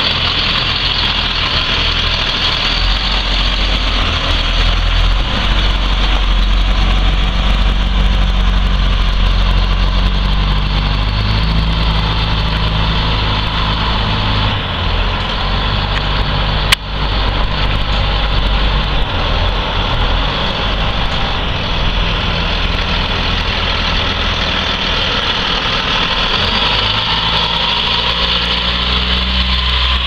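Caterpillar C7 inline-six diesel engine of a Blue Bird school bus running as the bus drives off across a lot and comes back, its pitch shifting up and down in steps. One sharp knock about 17 seconds in.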